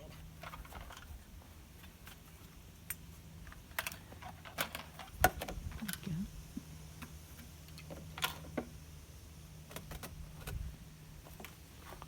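Light clicks, taps and knocks of small hard objects being handled, with a louder knock about five seconds in, over a steady low hum.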